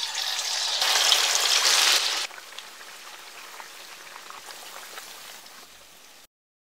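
Pieces of fish frying in hot oil in a pan. A loud sizzle for the first two seconds or so as the fish goes into the oil, then a quieter, steady crackling sizzle that stops abruptly near the end.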